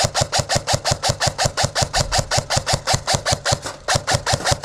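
Airsoft rifle firing on full auto: a steady rattle of about ten shots a second, with a brief break near the end before the firing picks up again.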